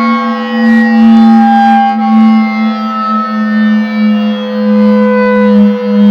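Klaxon CS8 siren sounding at a steady pitch: a strong low tone with several fainter higher tones drifting slightly above it.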